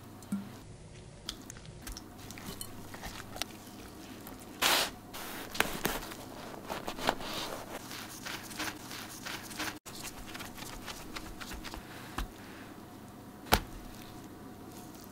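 Close-up food-preparation sounds: scattered soft squishes, rustles and scrapes as gloved hands press down opened baguette halves on a wooden board and a spoon spreads a moist chopped-vegetable-and-cheese filling onto the bread. A louder rustle comes about five seconds in and a sharp tap near the end.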